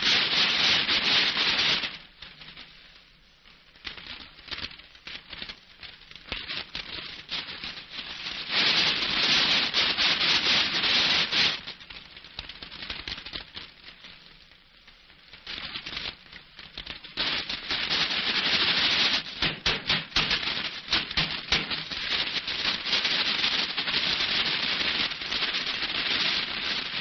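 A large sheet of crumpled paper wrapping crinkling and rustling loudly as it is handled. It comes in stretches: about the first two seconds, again around nine to eleven seconds in, and almost without break from about sixteen seconds on, with quieter pauses between.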